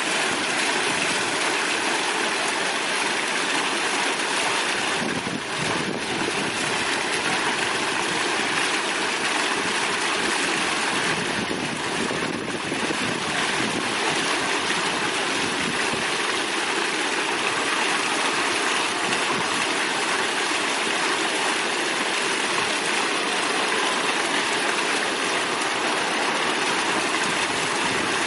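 Tiered decorative fountain splashing steadily: low bubbling jets and water spilling over a ledge into the basin below.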